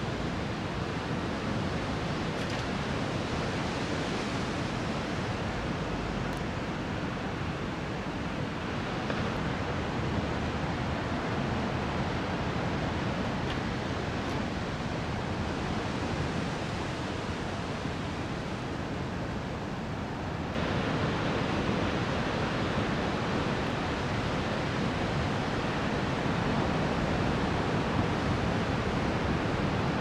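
Steady wash of large ocean waves breaking and whitewater rushing, heard from the shore. The level jumps up suddenly about two-thirds of the way through.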